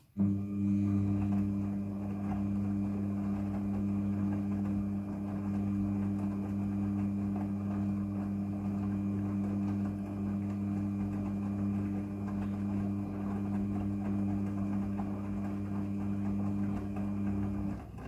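Front-loading washing machine's drum motor running with a steady electric hum as the drum turns the load of clothes during a wash tumble. It starts suddenly and cuts off just before the end.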